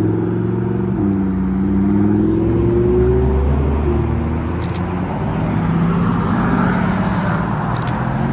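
A car's engine accelerating through the gears: its note climbs, drops sharply at an upshift about a second in, climbs again, and shifts once more about four seconds in, then runs on at a steadier pitch.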